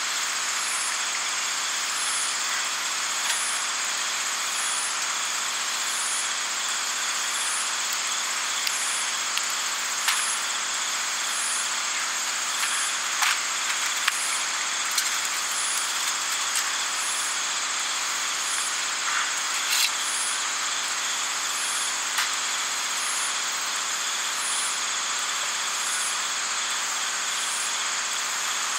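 Night insects trilling steadily, with a high chirp repeating about once a second, over an even hiss and a few scattered small pops and clicks.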